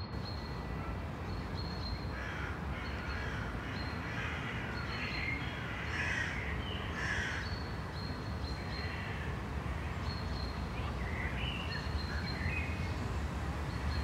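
Crows cawing over and over above a steady low rumble of road and wind noise from a moving vehicle.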